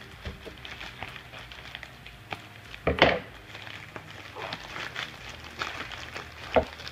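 A mailing envelope being cut open with scissors and pulled apart: scattered snips, crinkles and rustles of the envelope, with one sharp, louder noise about three seconds in.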